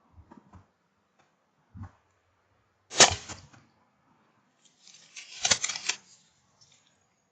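Air rifle shot, one sharp crack about three seconds in, followed a couple of seconds later by a longer flurry of rapid knocks and rustling. A few faint clicks come before the shot.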